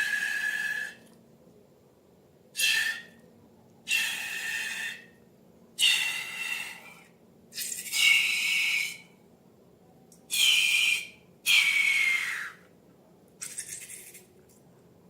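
Air squealing and hissing out of the necks of long balloons in eight separate bursts of about a second each, some dropping in pitch as they end; the last is fainter.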